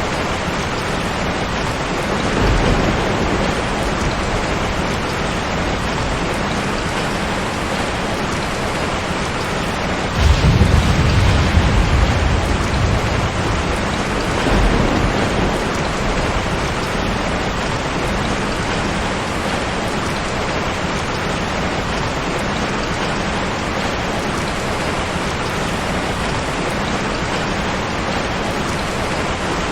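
Steady heavy rain with rolling thunder: a low rumble about two seconds in, then a louder crack of thunder about ten seconds in that rumbles away over several seconds.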